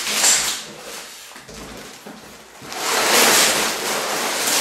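Plastic bags of Lego pieces crinkling and rustling as they are pulled and tipped out of a cardboard box, much louder from about three seconds in as the box is lifted and the bags slide out onto the pile.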